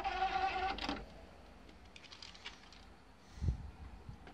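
Motorised disc tray of a Philips CD player closing, a whirring drive with clicks that stops about a second in. A single low thump follows near the end.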